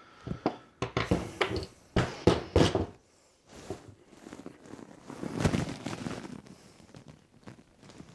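Sharp clicks and knocks from handling a hand-held battery cable crimping tool and a copper lug terminal, several in quick succession in the first three seconds, then a longer rustling, scraping noise about five seconds in.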